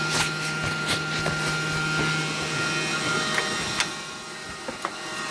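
Light clicks and knocks of MIG torch lead parts being handled at the welder's wire-feed compartment, over a steady machine hum that stops a little over two seconds in.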